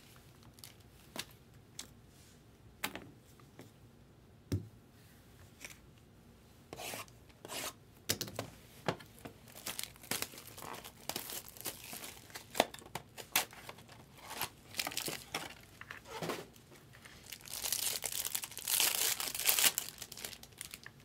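Hands opening a trading-card box, the wrapping and cardboard rustling and tearing with scattered light taps and one thud. Near the end a foil card pack is torn open and crinkles, the loudest stretch.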